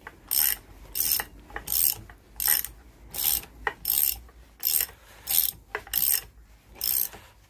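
Ratchet wrench being worked back and forth to run down a bolt or nut, giving a burst of ratchet clicks on each return stroke, about one and a half strokes a second.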